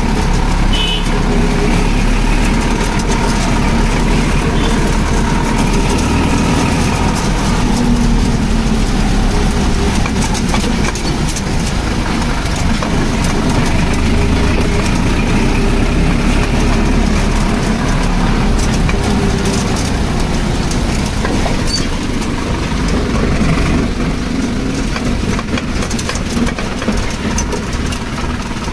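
Tractor diesel engine running steadily, with a slight drop in level near the end.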